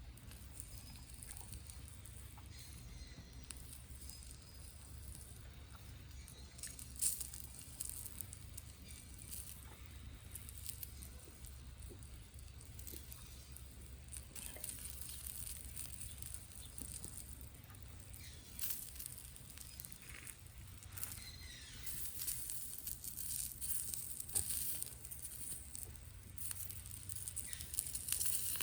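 Faint crackling and sizzling from a wood fire grilling meat on a fire pit, with scattered small pops that grow denser in the last several seconds.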